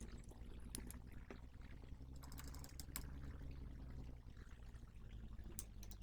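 Scattered small clicks and light rattles of a power supply's metal casing and screws being handled as it is reassembled, over a faint steady low hum.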